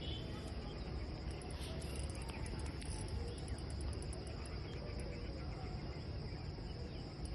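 Crickets or similar insects trilling: a continuous high buzz with rapid chirps above it, over a low rumble.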